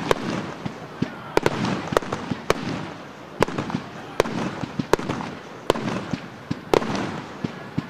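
Small aerial fireworks bursting one after another, sharp bangs at an irregular pace of about one to two a second.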